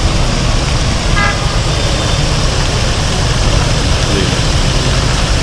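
Steady road traffic noise at a busy city roundabout, with a vehicle horn giving one short toot about a second in.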